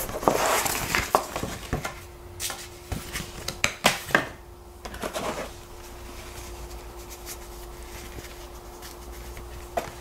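Stiff paper pages of a booklet rustling as they are turned, followed by a few light clicks and taps of handling. After that comes quieter, soft handling as a cloth wipes the blade of a Victorinox pocket knife.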